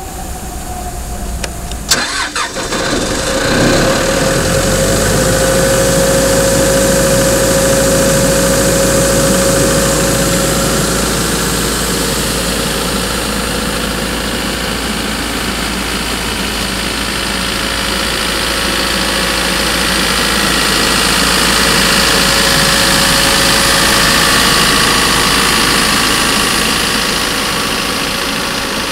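Ingersoll Rand towable air compressor's engine cranking and catching in the first few seconds, with a sharp click about two seconds in. It then runs steadily, with a steady whine over the engine note.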